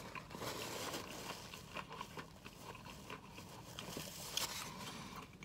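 Paper wrapper crinkling and rustling close to the microphone, with small crackles, then a soft bite and chewing.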